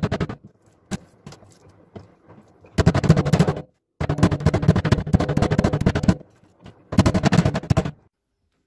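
Metal meat mallet pounding thin slices of pork on a wooden cutting board that rests on a stainless steel sink drainer. The strikes come in rapid runs of many blows, about four bursts with short pauses and a few lighter knocks between them.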